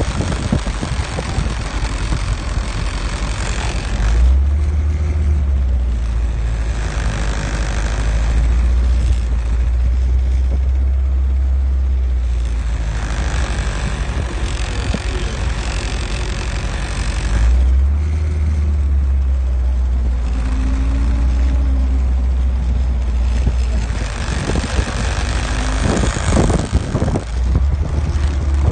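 Willys Jeep's four-cylinder engine running as the Jeep drives an off-road dirt track, heard from on board. The low engine note gets heavier twice, about four seconds in and again around eighteen seconds, then eases back.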